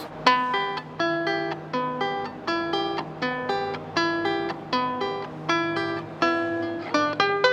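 Venezuelan cuatro, a small four-string guitar, strummed in a steady rhythmic pattern of chords.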